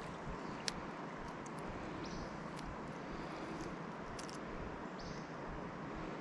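Steady rush of flowing river water, with a few sharp clicks over it.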